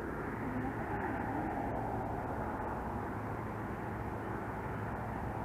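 A steady motor rumble with no distinct events.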